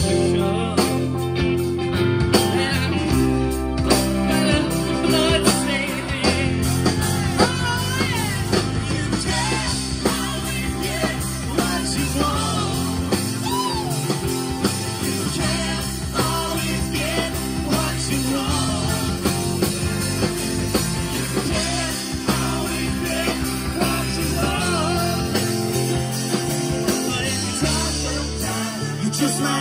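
Live rock band playing, with electric guitars, bass guitar and a drum kit, and a woman singing lead into a handheld microphone.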